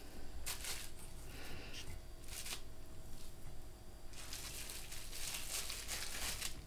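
Faint crinkling and rustling of wrapping being handled: a few short rustles, then a longer stretch of rustling from about four seconds in.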